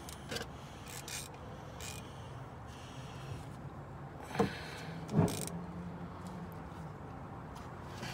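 A few light clicks and two louder sharp knocks about a second apart near the middle, from a socket wrench and tools being handled under a car, over a steady low hum.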